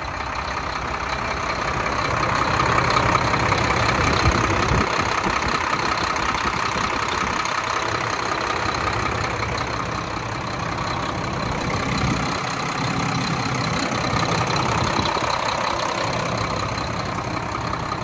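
The Mack diesel engine of a 2007 Mack Granite dump truck idling steadily, heard close up at the open engine bay.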